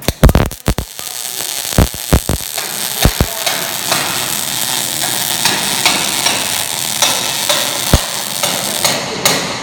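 MIG welding arc: a few sharp pops as the arc strikes in the first second or so, then a steady crackling sizzle as the wire feeds into the weld pool, stopping at the end.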